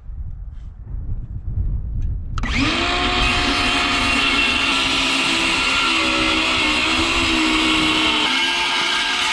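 An electric power tool's motor starts about two seconds in, whining up to speed, and then runs loud and steady, its pitch shifting a little. Before it, a low rumble of wind on the microphone.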